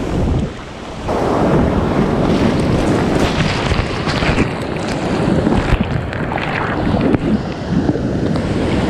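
Ocean surf crashing over a rock ledge and surging into a tidal rock pool, a loud rushing, churning wash that swells up about a second in and keeps going, with wind buffeting the microphone.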